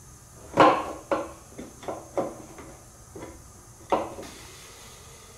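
A string of sharp clicks and knocks, about eight in all, the loudest about half a second in and another just before four seconds: a hand tool knocking against the metal and plastic parts under an ATV's tank as the fuel tank is hooked back up.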